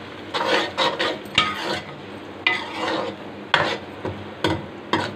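Steel ladle scraping and knocking against a steel wok, stirring onions and garlic frying in oil, in about ten irregular strokes. A faint steady sizzle runs underneath.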